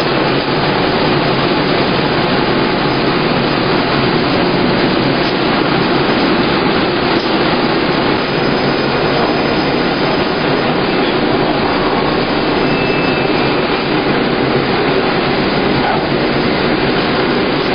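Grape selection line running: the stainless vibrating sorting tables and conveyors carrying grape bunches make a steady, even mechanical noise that does not change.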